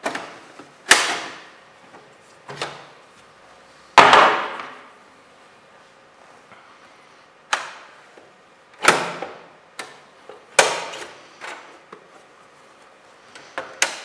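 Plastic and metal clicks and knocks of a Dell desktop computer's case being opened by hand: the cover unlatched and lifted off, then the drive bay handled and the drive cage swung up. About seven sharp knocks, the loudest about four seconds in, ringing on briefly.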